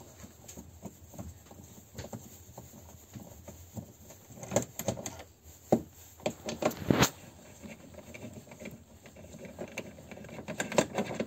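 Screwdriver turning out the screws that hold a car's door pull handle to the inner door trim. Scattered small clicks and light plastic knocks, bunched into a few short flurries.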